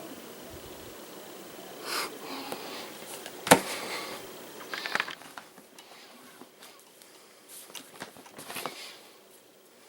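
Handling noises from a cellophane-wrapped laptop box being moved about: brief rustles and soft knocks, with one sharp knock about three and a half seconds in, the loudest sound.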